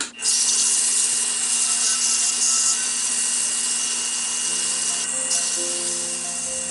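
320-grit sandpaper held against an olive-wood pen blank spinning on a King Industrial KWL-813VS mini wood lathe, giving a steady sanding hiss over the lathe's constant whine. Background music comes in under it about four and a half seconds in.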